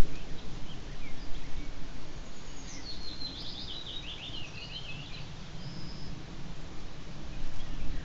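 A songbird singing one rapid, trilled phrase of about two seconds near the middle, with a few faint scattered bird chirps around it, over a steady low outdoor rumble.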